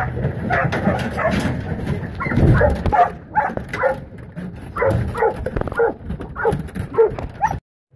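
Sheepdog barking over and over in short, quick barks while working sheep up into the crate; the sound cuts off suddenly near the end.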